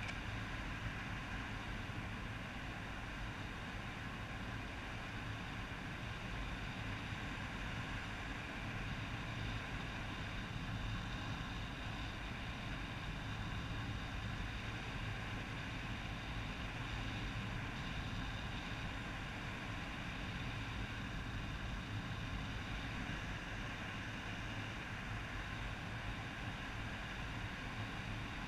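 Steady motor hum of a small aircraft carrying the camera in flight, several fixed tones over a constant rush of air noise.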